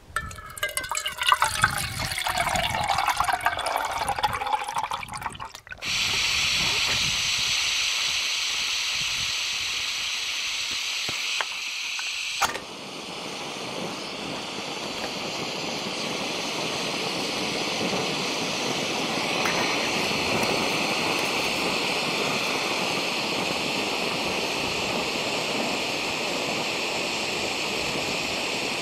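Water poured from a hydration bladder into a Jetboil cooking cup, gurgling as it fills for about five seconds. Then a steady hiss that runs on, with a sharp click about twelve seconds in, consistent with the Jetboil gas stove being lit and burning.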